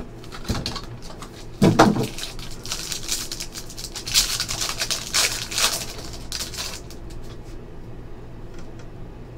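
A knock as a cardboard trading-card hobby box is handled, then a foil card pack crinkling and tearing open for several seconds, followed by quieter rustling of cards being handled.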